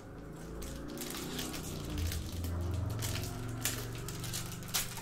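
A foil trading-card pack crinkling in the hands and being pulled open, with sharp crackles of the foil near the end.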